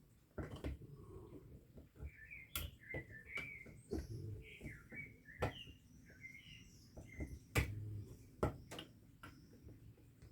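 Irregular sharp clicks and taps of pliers and small metal parts being handled, with birds chirping repeatedly in the background.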